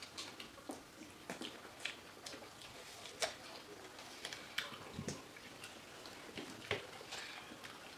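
Faint, irregular soft clicks and smacks of people eating fresh fruit: mouth and chewing noises, with the odd tap of fruit being handled, a few louder ones near the middle and toward the end.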